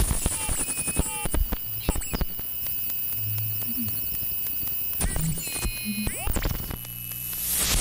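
Experimental electronic noise music: scattered clicks, short gliding tones and brief low hums over a faint steady high tone, with a wash of hiss swelling up near the end.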